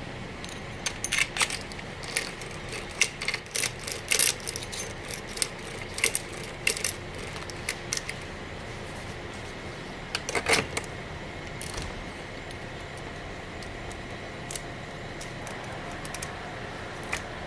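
Metal parts of a Hayabusa H5200 chainsaw and hand tools being handled during assembly, making irregular sharp clicks and clinks. The clicks are busiest in the first half, with a loud clatter about ten seconds in.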